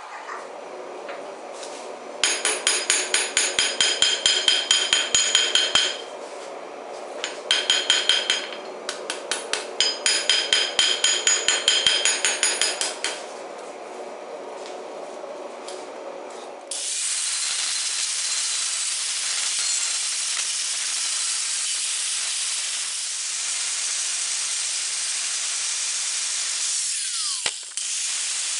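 Hammer forging steel on an anvil: two runs of rapid, evenly paced ringing blows, about four a second, over a steady rushing noise. About halfway through, the blows stop and a loud, steady hiss takes over.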